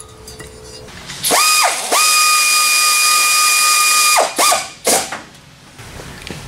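Cordless power tool motor whirring: a brief spin-up, then a steady high whine for about two seconds that winds down, followed by two short blips.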